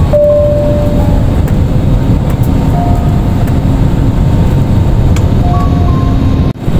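Jet airliner cabin noise heard from a window seat beside the wing on approach: a loud, steady rush of turbofan engines and airflow. The sound drops out for a moment near the end.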